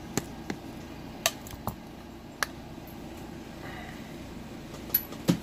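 A handful of separate sharp metal clicks and clinks as a Winkhaus profile lock cylinder is taken out of a bench vise and handled, over a faint steady background hum.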